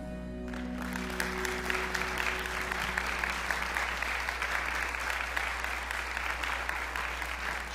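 Congregation applauding at the end of a sung song, a dense patter of many hands clapping, while the last held notes of the backing music fade out over the first few seconds.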